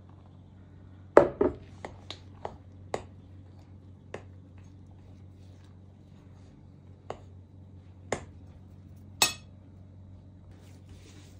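Sharp clinks and knocks of a metal spoon and glass bowls against a glass mixing bowl as flour is stirred into a wet dough. There are about ten separate clinks, most of them in the first three seconds, the loudest about a second in; one near the end rings briefly.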